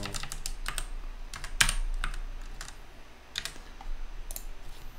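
Computer keyboard typing: irregular keystrokes, the sharpest about one and a half seconds in, thinning out in the second half.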